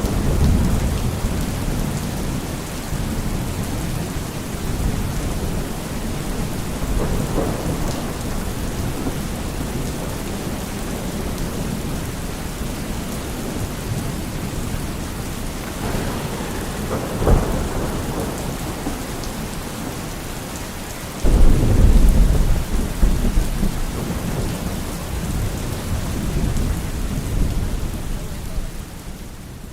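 Steady heavy rain with rolls of thunder rumbling through it, one sharp crack about halfway and the loudest, longest rumble about two-thirds through; the sound fades out at the end.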